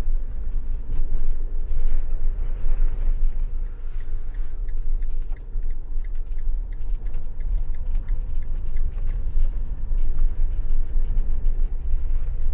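Camper van driving, a steady low rumble of road and engine noise that goes on as it rolls over cobblestones. A faint regular ticking runs for a few seconds midway.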